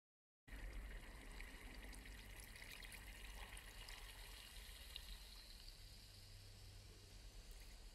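Faint, steady trickle of water over a low rumble, starting about half a second in after silence.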